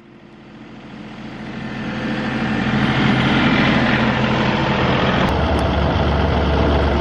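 Tractor engine running and growing steadily louder over the first three seconds as the front-loader tractor comes up to and over the camera, then holding steady; a deep rumble joins a little after five seconds.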